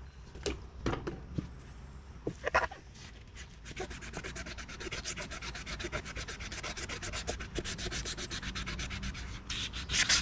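Hand wet sanding of a Yamaha Blaster ATV's plastic body panel with fine-grit wet sandpaper. It begins with a few scattered scrapes and knocks, then from about four seconds in settles into quick, steady back-and-forth strokes, about five a second.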